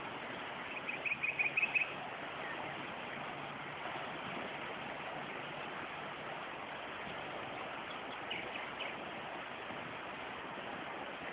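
Steady rushing of a fast-flowing river, with a quick run of about seven high chirps about a second in and a few more near the end.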